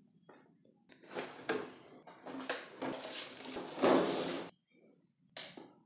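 Stiff clear plastic packaging tray crackling and rattling in a few bursts of handling as the radio transmitter is taken out of it. The loudest burst is about four seconds in, and a short one follows near the end.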